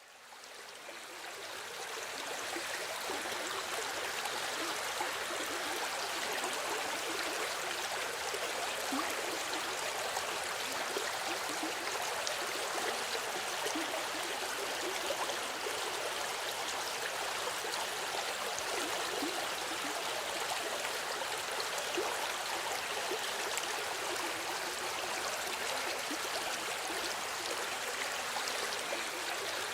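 River water flowing and babbling over stones, a steady rushing with gurgling detail that fades in over the first two seconds and then holds even.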